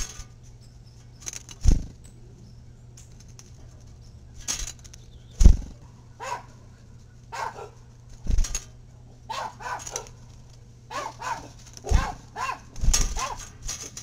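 Dull, loud knocks on the feeder close to the microphone, a few seconds apart, as birds land and peck at the tray. From about six seconds in come clusters of short, repeated calls.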